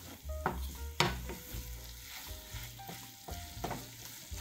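A spatula stirring crumbled tofu scramble in a frying pan: irregular scrapes and taps against the pan, about eight in all, a few with a brief ring, over a faint frying sizzle.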